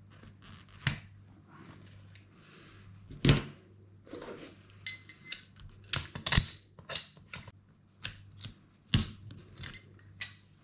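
Irregular clicks, taps and knocks of small plastic and metal RC car parts being handled as a rebuilt front shock absorber is fitted to the chassis of a Traxxas Nitro 4-Tec, busiest in the middle of the stretch.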